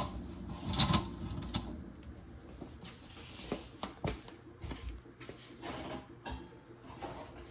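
Handling and scrubbing of the garbage disposal's rubber gasket with a damp sponge: soft rubbing with scattered light clicks and taps of the parts being moved, and a sharper knock about a second in.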